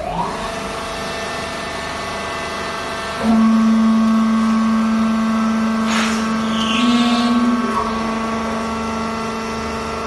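Vertical hydraulic fibre baler running: its electric motor and hydraulic pump give a steady hum. About three seconds in the hum gets louder, with a strong low whine as the pump comes under load, and eases back near eight seconds. There is a single knock about six seconds in.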